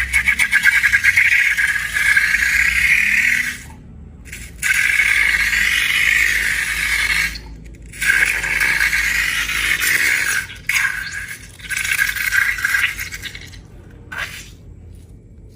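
Crackly scraping and rattling from slime-making materials being worked by hand, in several long bursts broken by short pauses, with a fast fine crackle at the start.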